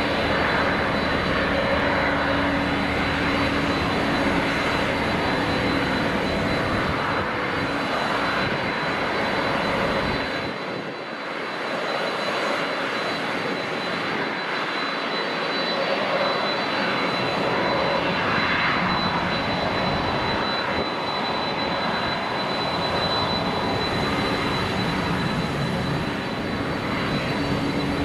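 Jet airliner engines running: a steady rush of engine noise with a thin, constant high whine. The deep rumble fades about ten seconds in and returns a few seconds later.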